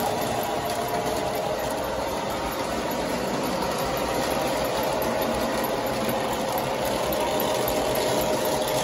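O-gauge model trains running on three-rail metal track: a steady rumble and whir of wheels and motors.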